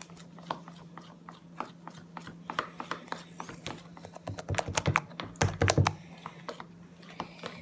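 Homemade slime being kneaded and squished by hand, giving a run of irregular small clicks and pops that gets busier and wetter-sounding about halfway through.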